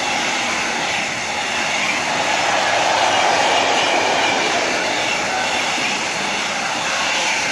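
Container freight train rolling past: a steady rush of wagon wheels on the rails, swelling a little about halfway through.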